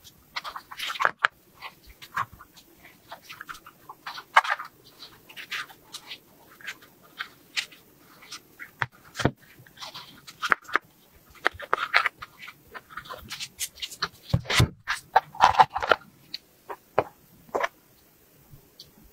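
Kinetic sand being pressed, squeezed and crumbled by hand into a plastic toy-car mould: irregular soft crunches and crackles, with a few louder knocks against the plastic.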